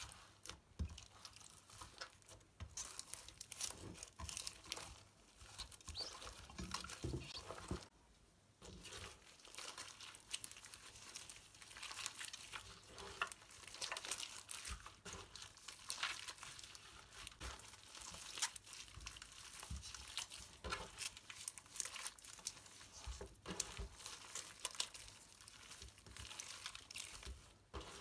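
Slime being worked by hand, kneaded, stretched and squished, giving a continuous sticky crackling of many small clicks and pops, with a brief pause about eight seconds in.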